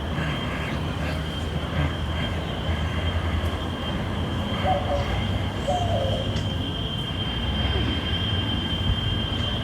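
Steady low rumble with a thin high steady tone over it, and a dove cooing twice, about five and six seconds in.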